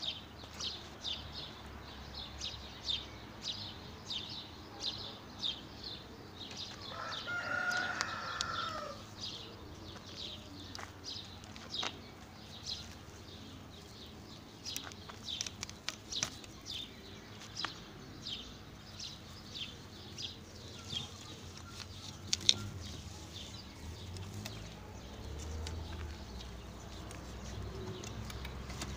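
A rooster crows once, about seven seconds in, a call lasting about two seconds. Short high ticks repeat about twice a second through the first half, then come irregularly, with one sharp click later on.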